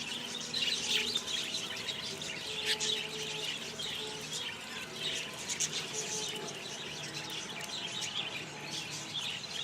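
Many small aviary birds chirping, a busy chatter of short, high, overlapping calls.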